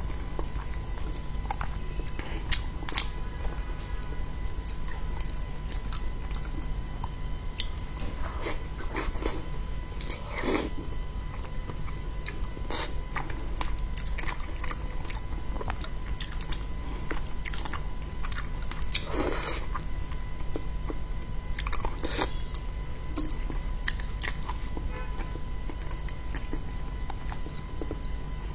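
Close-miked mouth sounds of a person eating fish and shrimp: irregular wet chewing and biting with scattered sharp crunches, the longest bursts about a third and two-thirds of the way through, over a steady low hum.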